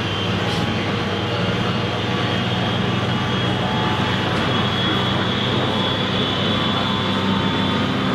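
JR East 719 series electric train heard from inside the car while running, with a steady hum and a high whine that stops near the end. The whine comes from traction motors that sounded different from normal on this train.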